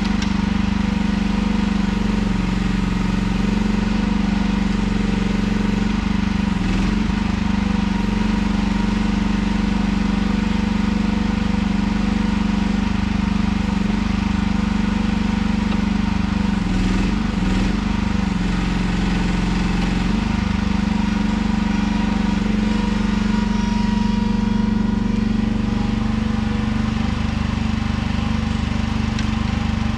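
Engine of a bucket-equipped machine running steadily at a constant speed, its pitch dipping and wobbling briefly a few times.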